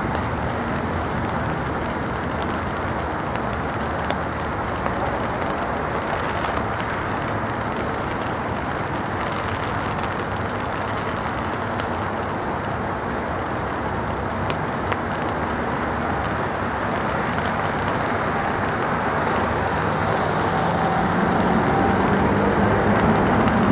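Boeing 777 jet engines on approach: a steady, distant rush that slowly grows louder as the airliner nears. Engine tones come through and strengthen over the last several seconds.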